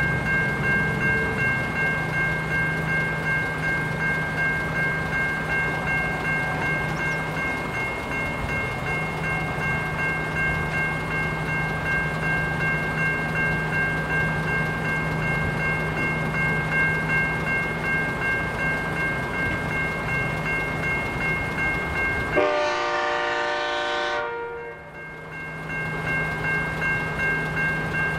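Safetran Type 3 electronic level-crossing bell ringing in an even, repeating pulse while the crossing is activated, over a low steady hum. Near the end a sharp click is followed by a few seconds in which the sound goes muffled and dips before the bell comes back.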